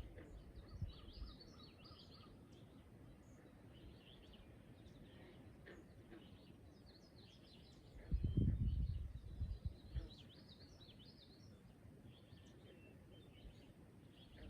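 Faint morning chorus of wild birds, with many short high chirps and calls overlapping throughout. A brief low rumble breaks in about eight seconds in and lasts about a second and a half.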